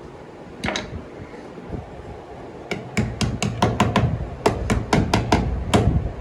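A quick double knock about a second in, then a fast run of about a dozen sharp knocks, roughly four a second, over about three seconds, with low rumbling handling noise under them.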